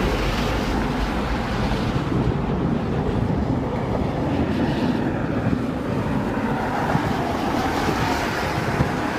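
Boeing 757-300's twin jet engines at takeoff power during the takeoff roll, a steady rushing noise with a low rumble, mixed with wind on the microphone.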